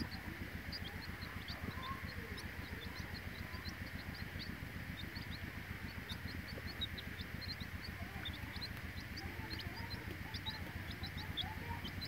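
Young chicks peeping: many short, high cheeps over a steady low hum.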